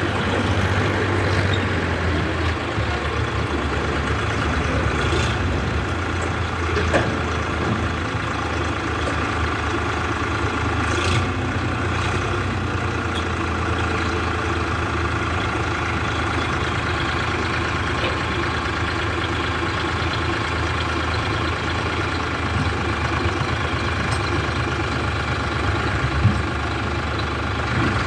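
Eicher tractor's diesel engine running steadily as it powers the hydraulic tipping of a trailer loaded with soil, with a few faint knocks.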